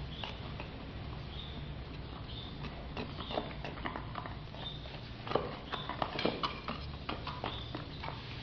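A stirring stick clicking and scraping irregularly against a container as resin is mixed with its catalyst, the knocks coming thicker and louder from about five seconds in. A steady low hum runs underneath.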